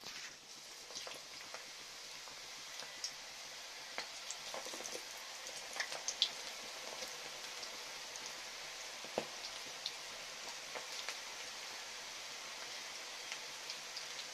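Cabbage and amaranth-leaf pakoda batter deep-frying in hot oil in a kadai: a sizzle that comes in suddenly as the batter is dropped in, then a steady hiss with scattered crackles and pops.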